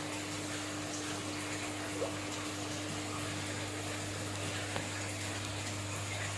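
Aquarium pump and filter running: a steady rush of moving water over a constant low hum, with two faint ticks, one about two seconds in and one near five seconds.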